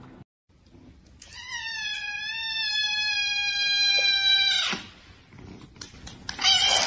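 White kitten giving one long, high-pitched meow lasting about three and a half seconds, which wavers a little before it breaks off.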